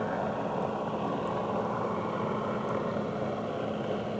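Jet ski engine running steadily: a constant drone under a rushing hiss, with no rise or fall in pitch.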